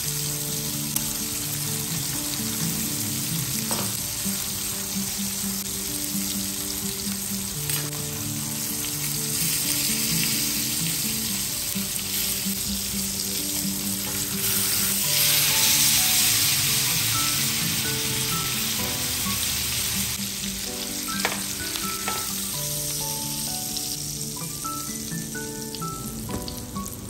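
Beef steak sizzling and frying in a cast-iron pan, a steady hiss that swells about halfway through and eases near the end. Background music plays under it.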